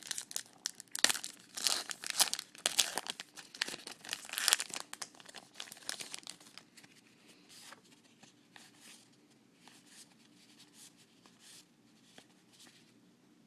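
A trading-card pack wrapper being torn open and crinkled, busiest through about the first six seconds, then fainter scattered rustles and soft clicks as the cards are handled.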